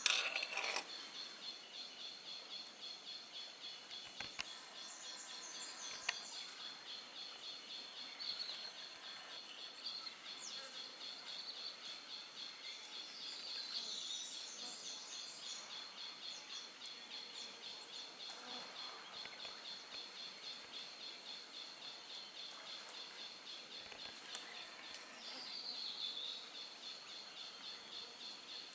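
Natural forest ambience: a steady, rapidly pulsing insect drone with scattered bird calls, a few of them louder near the middle and near the end. A sharp click comes right at the start.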